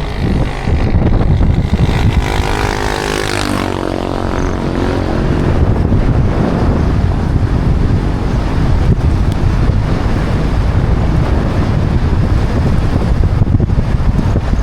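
A motor vehicle engine running under way, with heavy wind noise on the microphone. Its engine note shifts in pitch between about two and four seconds in.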